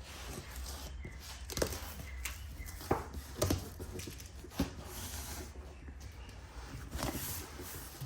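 Packing tape being cut and pulled off a cardboard box, with scraping and rustling broken by several sharp clicks and knocks.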